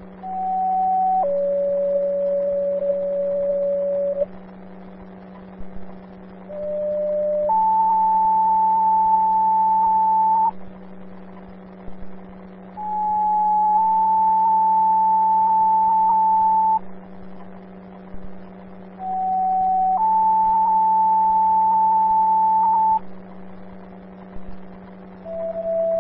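Fire dispatch pager alert tones over a scanner radio: a series of two-tone sequential pages, each a short tone of about a second followed by a longer, steadier tone of about three seconds at a different pitch, sounding four times with short pauses between them, with a fifth page starting near the end. These tone sets alert the fire companies and medic units for the call. A steady low hum runs underneath.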